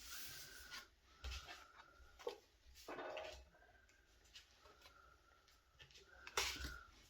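Tarot cards being handled, sliding and rustling against each other and the table in several short scratchy bursts, the loudest near the end.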